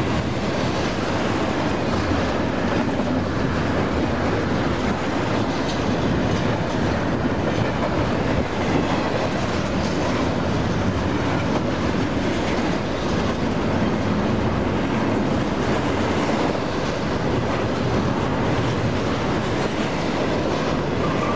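Union Pacific freight train rolling past, giving a steady noise of steel wheels on rail that holds without break.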